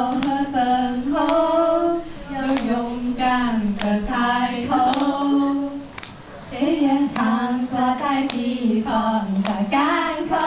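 Young girls' voices singing a song together into a microphone, in held, gliding phrases with short breaks between lines, and sharp claps keeping the beat.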